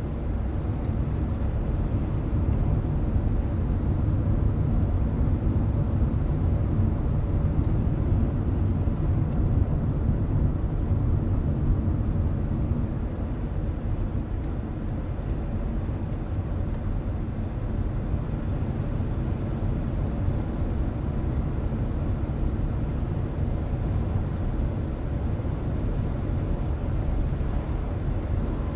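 Steady low road rumble of a car driving, heard from inside the cabin, a little louder for the first dozen seconds and then easing slightly. A few faint, sharp ticks sound over it.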